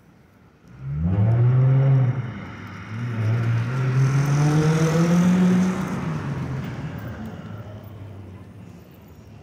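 A motor vehicle's engine accelerating past: its pitch climbs, drops back once about two seconds in, climbs again for a few seconds, then fades into road noise.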